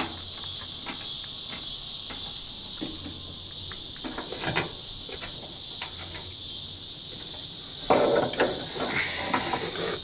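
Insects chirring steadily in a high band, with scattered light clicks and knocks of hand work on the truck door, a busier clatter near the end.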